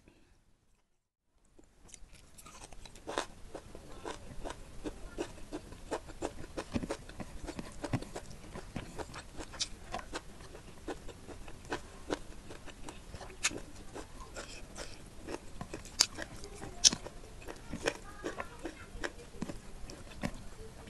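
Close-miked chewing and wet mouth sounds of someone eating spicy chicken curry with rice, dotted with many sharp crunchy clicks. The sound starts after a second or so of silence, and the two loudest crunches come about three-quarters of the way through.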